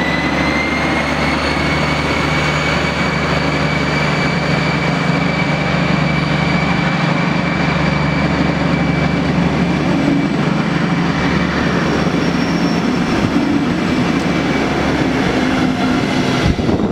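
DB Class 218 diesel-hydraulic locomotive pulling away under power: a low diesel drone with a high whine that rises over the first couple of seconds and then holds steady, over the rolling of its double-deck coaches' wheels as they pass.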